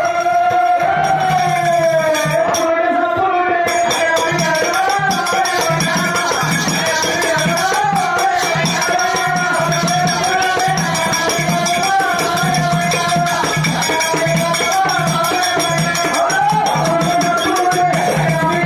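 Loud South Indian folk devotional music for dancing: a continuous, wavering high melody line over a steady drum beat and rattling percussion.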